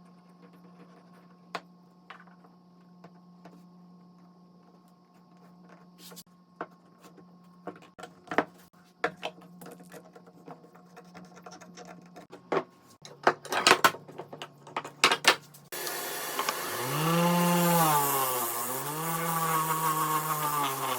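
Wood and tools knocking and clicking as they are handled, then a power tool's motor starts about three-quarters of the way in and runs, its pitch dipping twice as it takes load in the wood.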